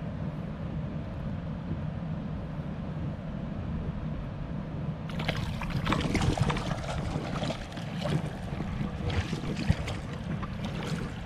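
Water splashing irregularly, starting suddenly about five seconds in, over a steady low rumble of stream and wind.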